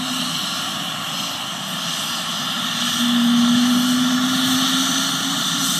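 Ambulance helicopter running on the ground before lift-off, its turbine engines and main rotor making a steady rushing whine. A low hum underneath grows louder for a couple of seconds midway.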